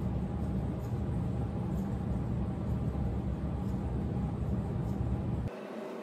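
Steady low rumbling room noise that cuts off abruptly about five and a half seconds in, leaving a quieter steady hum.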